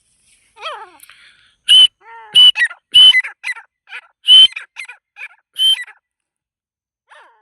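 Francolins (teetar) calling: a series of short, sharp, high-pitched calls, about five loud ones with softer notes in between, starting a little under two seconds in.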